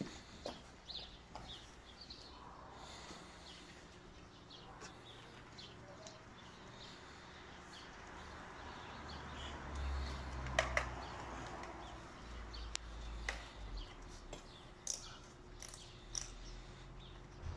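Faint street ambience with small birds chirping now and then. A low rumble swells around the middle, with a few sharp clicks.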